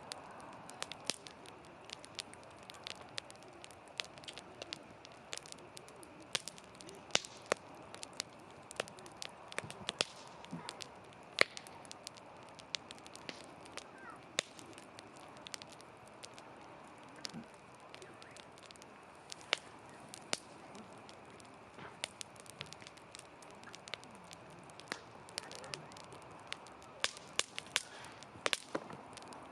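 Wood campfire crackling, with many sharp, irregular pops over a soft steady hiss.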